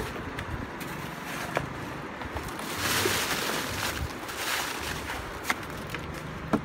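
Steady wind and surf noise, with a few sharp knocks and a brief louder rustle about three seconds in as a large woven sack is handled on a wooden boat.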